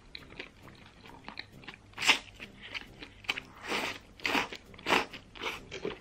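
Close-miked eating: spicy sliced fatty beef in chili broth sucked in from chopsticks and chewed, with a string of short, loud slurps and wet smacks between about two and five and a half seconds in.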